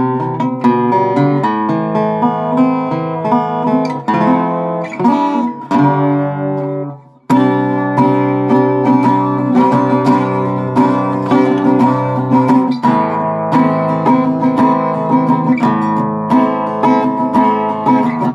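Rosewood six-string acoustic guitar played fingerstyle, picked melody over bass notes. About seven seconds in a chord is left to ring and fade almost to nothing, and then the playing starts again.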